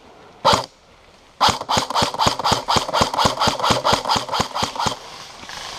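Airsoft gun firing: a single shot, then a rapid string of about twenty shots at roughly six a second that stops near the end.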